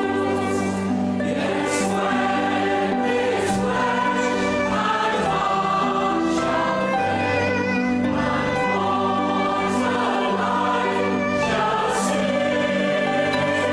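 A group of people singing a song together, holding long notes.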